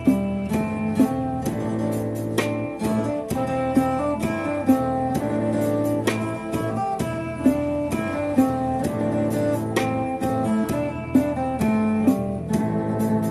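Background music of plucked guitar playing a melody, with notes struck steadily throughout.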